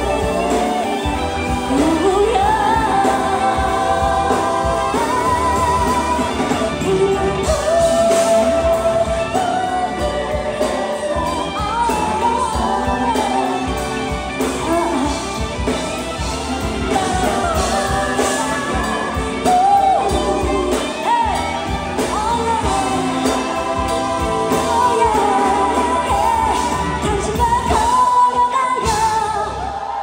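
A woman singing a pop song live into a handheld microphone over loud backing music with a steady beat.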